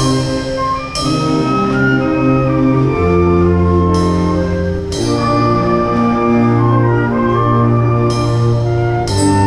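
Wind band playing sustained brass chords over a tuba bass line, with a drum kit adding cymbal crashes in pairs about a second apart, roughly every four seconds.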